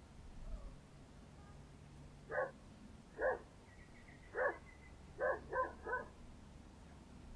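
A dog barking six times, the last three barks in quick succession.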